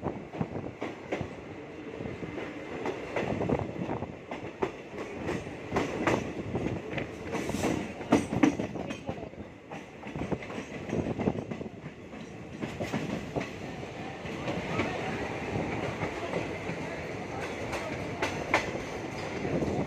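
An Indian Railways intercity express train rolling into a station, its coaches passing with wheels clattering irregularly over the rail joints.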